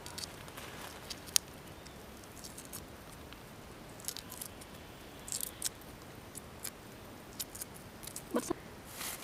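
Shell of a cooked egg being cracked and peeled off by hand: scattered small clicks and crackles as pieces of shell break away, with one sharper snap about a second and a half in.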